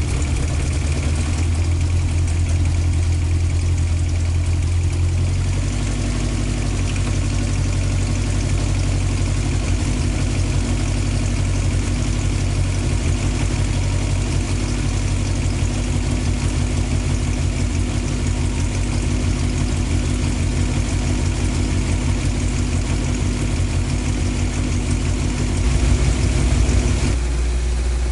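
Toyota five-valve (20-valve) 4A-G four-cylinder engine in an AE86 running at a raised idle while being warmed up. The throttle is held open by hand because the engine has no idle-up. Its tone shifts about five seconds in and again near the end.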